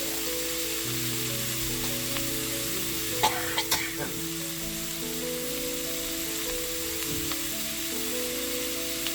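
Food sizzling in a pan under background music, with a few sharp clicks about three and a half seconds in.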